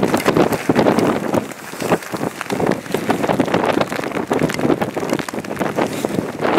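Gusting wind buffeting the microphone, with rain falling: an uneven rushing that swells and dips, easing briefly about one and a half seconds in.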